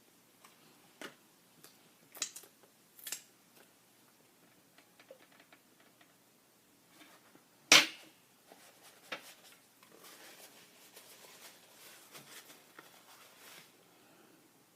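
Close-up eating sounds: several sharp crunches and clicks, the loudest about halfway through, then a few seconds of softer crackling chewing.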